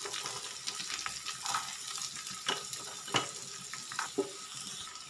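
Cauliflower florets and diced raw potatoes sizzling in hot oil in a frying pan as the potato cubes are tipped in, with a few sharp knocks against the pan about two and a half, three and four seconds in.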